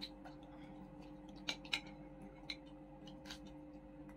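A handful of quiet, sharp clicks from a family eating at a table, unevenly spaced, over a steady low hum.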